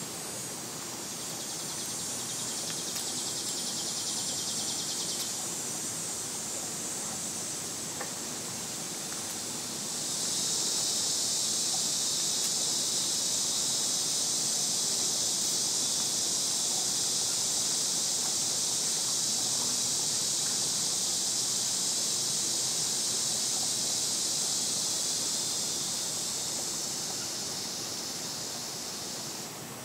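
Cicadas buzzing: a short buzz that stops abruptly after about five seconds, then a long, loud, steady buzz that begins about ten seconds in and runs for nearly twenty seconds before tapering and cutting off near the end. A faint, even background hiss lies under it.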